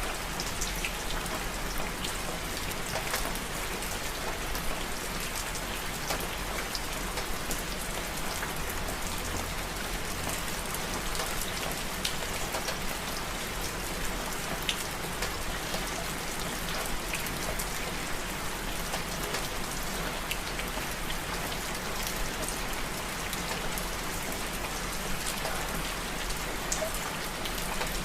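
Steady rain falling on a surface, with many small individual drops pattering throughout.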